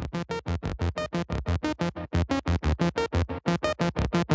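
Outro music made of short, evenly repeated pitched notes in a fast run of about eight a second.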